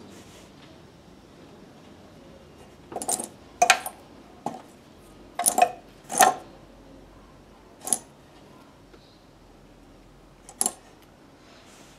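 Loose metal sewing-machine bobbins clinking against each other and the metal drawer as a hand stirs through them: about seven short clinks, several close together, then a couple spaced apart.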